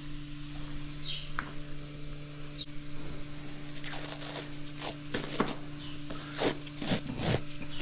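A steady electrical hum from barn equipment, with a series of short scrapes and clicks in the second half.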